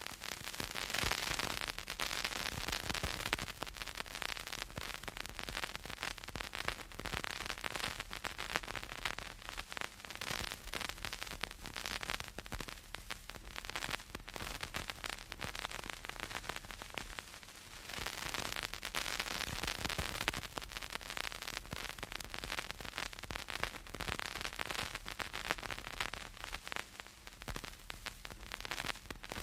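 Vinyl LP surface noise: dense crackles and pops over a steady hiss, the sound of a stylus riding the record's grooves, with a faint low hum underneath. The hiss swells a little a couple of times.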